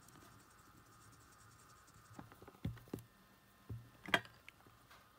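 A cotton swab rubbing over the solder pads of a Sony WM-E23RL wired remote's small circuit board, cleaning it: a faint scratching. Then come a few light taps and clicks, the sharpest about four seconds in.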